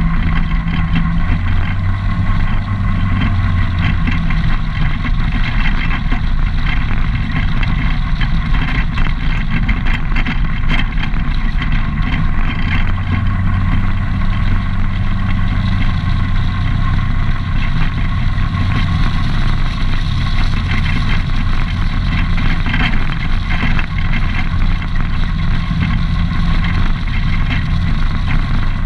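ATV engine running at a steady cruising speed while the quad travels along a gravel road, its pitch shifting slightly now and then.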